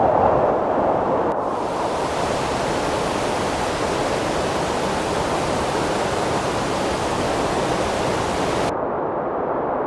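Steady rushing wind of a blizzard, with a brighter, hissier stretch in the middle that starts and stops abruptly.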